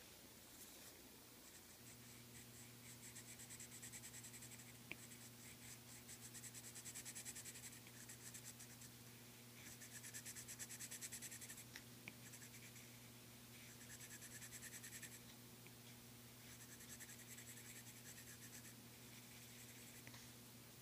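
Colored pencil scratching faintly over a painted ornament surface in quick back-and-forth shading strokes, coming in several spells of a second or two with short pauses between.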